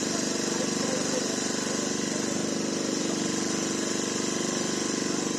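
An engine idling steadily, with a fast, even throb.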